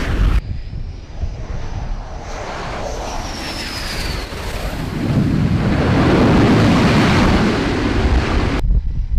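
F/A-18 Super Hornet's twin jet engines on a carrier landing: a falling high whine over the rush of the engines as the jet comes in, then a loud roar building about five seconds in as it touches down. The sound cuts off abruptly near the end.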